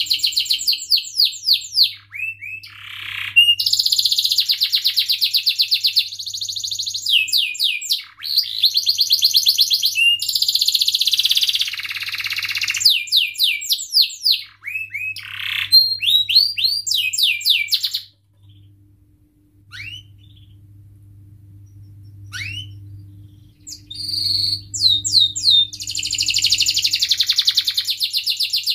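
Domestic canary singing a long, loud song of fast rolling trills and quick repeated chirps. About two-thirds of the way through it drops to a few scattered single chirps for several seconds, then resumes trilling.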